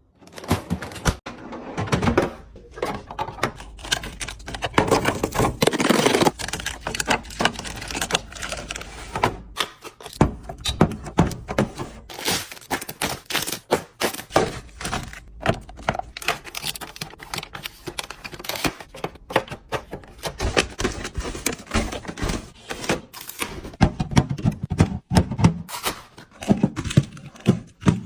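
Busy clatter of items being handled while restocking a fridge: many quick taps, clicks and knocks of plastic containers, bottles and packaging being picked up and set down, with rustling in between.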